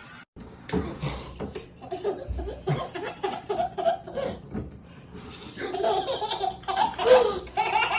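A baby laughing in short repeated giggles that grow louder and fuller about five and a half seconds in.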